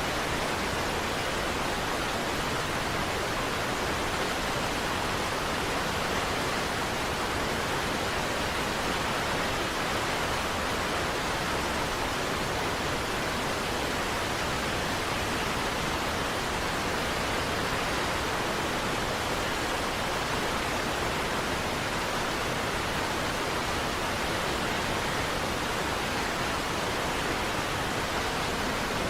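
Steady, unbroken rushing of a large waterfall, Niagara Falls, an even wash of falling water with no changes or separate events.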